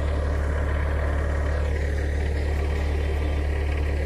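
Bobcat skid steer's engine idling with a steady low drone that does not change.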